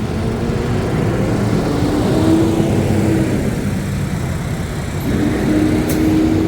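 Busy city street traffic: a steady din of cars and other vehicles going past, with a held low tone from a vehicle twice and a single sharp click near the end.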